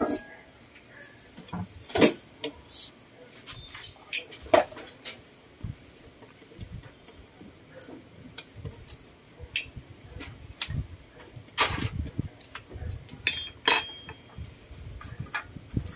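Hand tools clinking and tapping on a scooter engine's metal crankcase while the oil pump is being unscrewed: scattered short sharp metal clicks and knocks at irregular intervals.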